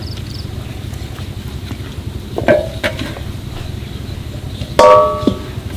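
Stainless-steel plate clanking twice as goat legs are handled on it, once about two and a half seconds in and louder near the end, each clank ringing briefly, over a steady low rumble.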